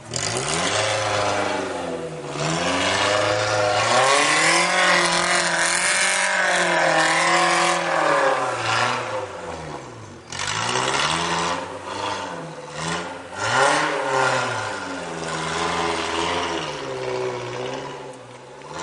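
Off-road 4x4's engine revving repeatedly, its pitch swelling and falling every couple of seconds, with one longer high-revving stretch near the middle.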